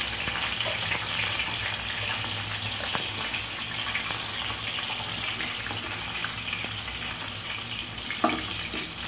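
Hot oil sizzling steadily in a frying pan around battered loitta (Bombay duck) fish pieces as they are lifted out with a slotted spoon, the burner just switched off. One sharp knock near the end.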